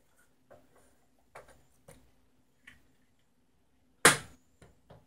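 Light clicks and knocks from a gloved hand handling a carbon pile battery load tester's knob and metal case, with one sharp, louder knock about four seconds in and two smaller ones after it. A faint steady hum runs underneath.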